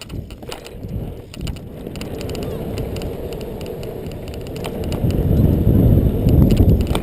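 BMX bike riding over a dirt track: a low rumble of tyres on dirt with scattered clicks and rattles. It grows louder about five seconds in.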